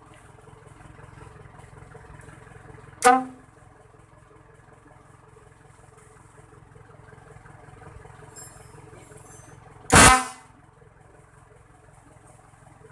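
A 12-volt Ban Pong electric horn sounds two short blasts, about seven seconds apart, over a steady low hum.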